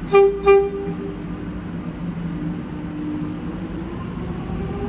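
X'Trapolis electric train's low-note horn giving two short toots in quick succession, then a steady low hum from the train. Near the end a whine starts to rise in pitch as the train pulls away.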